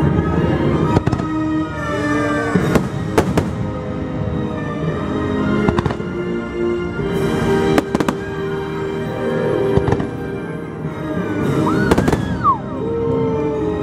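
Aerial fireworks shells bursting in a series of sharp bangs, scattered every second or two, over loud, steady orchestral show music.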